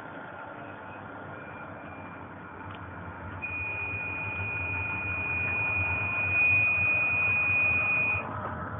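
Intercidades passenger train running on the rails, heard on board: a low rumble that grows louder, with a high, steady squeal that comes in faintly and broken at first, then holds for about five seconds from a little over three seconds in and cuts off suddenly.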